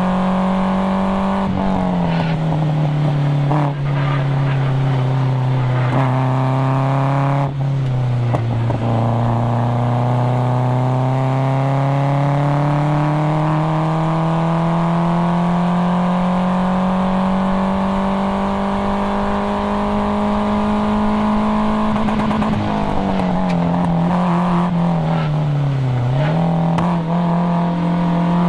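Nissan KA24DE four-cylinder engine of a 1997 240SX S14 driven hard on a race track. Its pitch sinks over the first few seconds and breaks briefly near the quarter mark. It then climbs steadily for over ten seconds under throttle, dips twice near the end as the driver eases off, and rises again.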